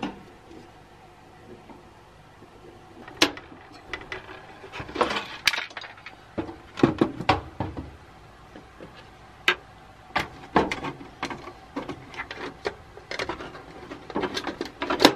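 Irregular clinks, taps and clunks of hand tools and metal parts being handled while a space heater's sheet-metal housing and circuit board are taken apart, in clusters, with a few sharper knocks.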